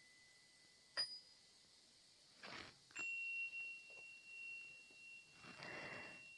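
Soft chime tones: a long high ringing tone fades away, a light chime is struck about a second in, and a clear high tone rings out about three seconds in and holds steady. Two soft whooshes come between.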